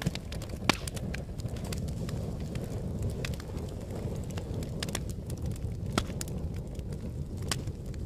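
Wood fire burning in a fireplace: a steady low rumble of flames with frequent sharp crackles and pops. The loudest pops come just under a second in and at about six seconds.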